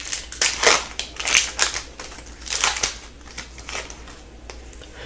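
Foil wrapper of a 2015/16 Series 1 hockey card pack being torn open and crinkled by hand: a run of crackling rustles that dies away about four seconds in.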